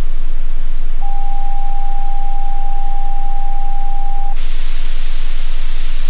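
Television off-air hiss with a steady single-pitch test tone from about a second in, sounding over the colour-bar test card. The tone stops about four seconds in and the hiss jumps louder as the signal drops to white-noise static, meaning the station is off the air.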